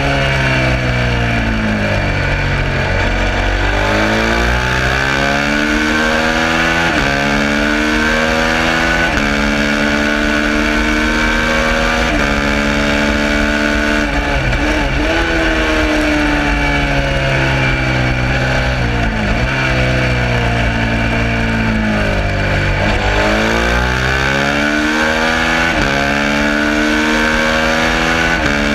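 Suzuki SV650's 90-degree V-twin at racing revs: pitch climbs and steps down with quick upshifts, then falls away on braking and downshifts before climbing again, several times over.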